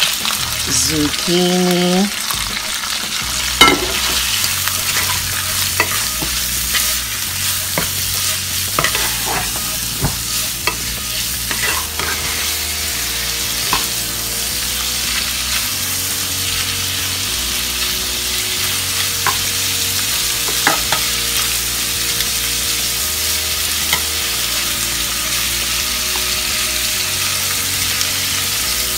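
Zucchini noodles sizzling steadily in hot oil in a non-stick frying pan, with scattered clicks and scrapes of the utensil against the pan as they are tossed and stirred.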